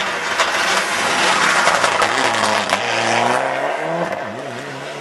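Rally car driving flat out past at close range, with a loud rush of tyre and road noise as it goes by. In the second half the engine note climbs in pitch, breaking and climbing again through gear changes as it accelerates away.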